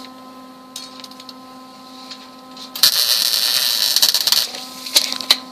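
A short burst of wire-feed (MIG) welding, a harsh crackling hiss that starts about halfway through and lasts about a second and a half, over a steady machine hum. A few sharp ticks follow near the end.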